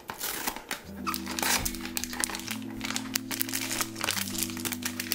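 Rose-gold foil blind-box bag crinkling as it is handled and crumpled in the hands, many sharp crackles, over background music with slow held chords.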